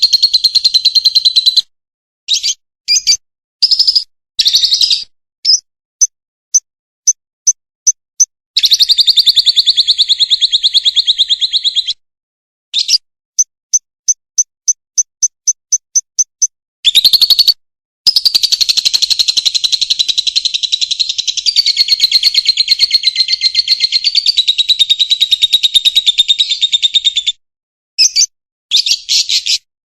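Lovebird giving its long chattering "ngekek" song: fast, shrill, buzzing trills that run for several seconds at a time. Between them come strings of single sharp chirps, first about two a second and then a quicker run of about five a second. The longest trill lasts about ten seconds, in the second half.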